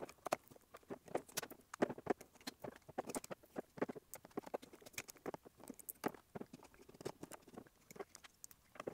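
Irregular small clicks and scratches, a few a second: a utility knife slitting the label on a hard drive's top cover, then a screwdriver engaging and turning out the cover screws hidden under the label.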